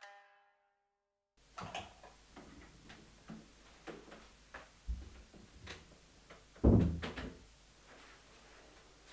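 A room door is opened and shut, followed by footsteps and small knocks in a small room, and a single loud, heavy thump about two-thirds of the way through.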